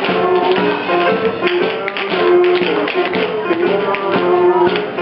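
Live music with a held melody, over many quick tap-dance taps.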